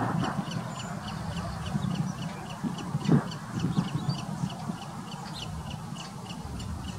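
Salt marsh ambience: a high tick repeated evenly, about two to three times a second, throughout, with harsh caw-like bird calls, the loudest about three seconds in, over a steady low rumble.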